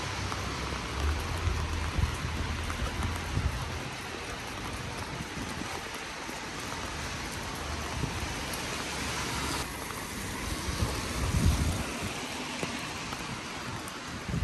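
Steady rain falling, an even hiss, with uneven low rumbles near the start and again about eleven seconds in.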